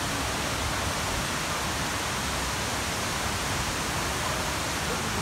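Steady rushing hiss of a large multi-tiered waterfall, water cascading over rock tiers into pools.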